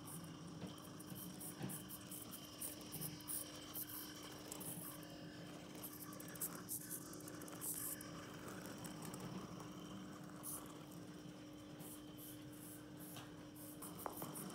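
Faint whir and irregular ticking of a 1/64-scale micro RC car's tiny N10 electric motor and gears as it drives, loudest when it passes close about eight seconds in, over a steady low hum.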